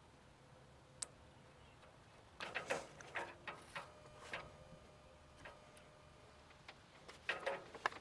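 Solar panel cable connectors being handled and plugged together: one sharp click about a second in, then runs of small clicks and rattles in the third and fourth seconds and again near the end.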